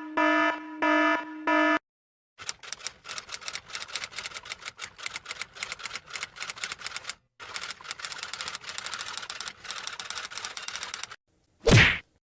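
Sound-effect sequence: a few short electronic beeps, then rapid typing clicks on keys for about nine seconds with a brief pause midway, ending in one short loud whoosh.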